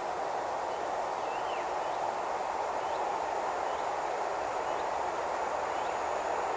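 Distant rumble of an approaching Bombardier Traxx electric locomotive and its train, a steady noise slowly growing louder. A small bird chirps about once a second.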